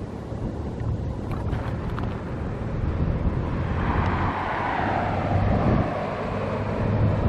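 Wind buffeting the microphone outdoors, with a vehicle passing by about halfway through, its noise swelling and falling in pitch as it goes.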